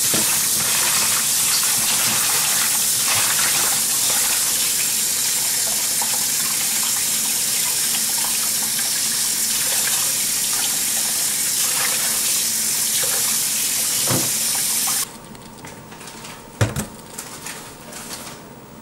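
Kitchen tap running into a steel pot in a stainless steel sink while hands rinse and swish crab pieces in the water: a steady splashing hiss. It cuts off abruptly about three-quarters of the way through, followed by one sharp knock and a few lighter clinks.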